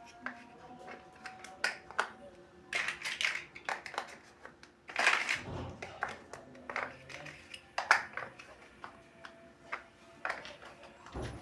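Plastic building bricks being handled and pressed together: scattered sharp clicks and taps with brief rattling rustles, the loudest about five seconds in and a sharp click near eight seconds.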